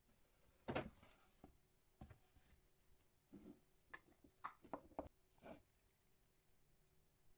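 Faint, scattered knocks and clicks of kitchen utensils and dishes being handled, about ten of them, the loudest a little under a second in, over a faint steady hum.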